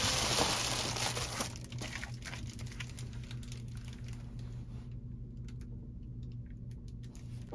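A plastic bubble mailer rustling and crinkling as it is handled for the first second and a half or so. After that come scattered light clicks and taps of a plastic pen case being handled, over a faint steady low hum.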